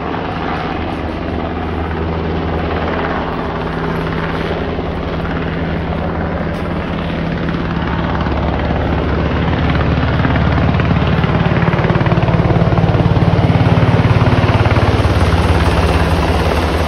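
Navy H-60 Seahawk search-and-rescue helicopter flying over low, its rotor thudding and turbines running steadily. It grows louder as it approaches, is loudest as it passes almost overhead near the end, then eases slightly.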